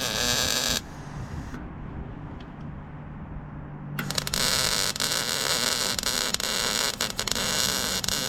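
Electric arc welding on a tractor's front axle: a loud, steady crackling hiss from the arc. It stops a little under a second in, leaving a low hum, and strikes up again about three seconds later.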